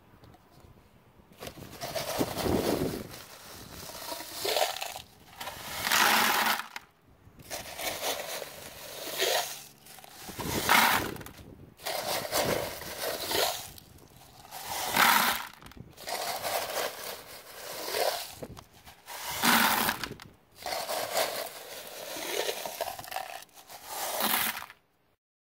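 Pea gravel scooped from its bag with a plastic cup and poured into a plastic bucket, scoop after scoop: stones rattling and clattering into the bucket about every two seconds.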